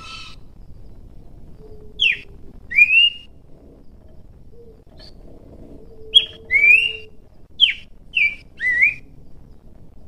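Pelanduk semak babbler singing clear whistled notes. Each phrase pairs a falling note with a rising one, about two seconds in and again about six seconds in, then three quick notes near the end.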